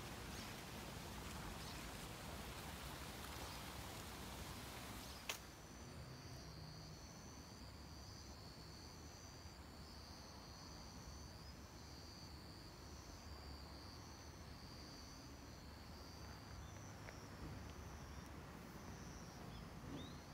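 Insects chirping in short repeated high trills at two pitches, starting just after a sharp click about five seconds in and dying away in the last few seconds, over a faint steady hiss.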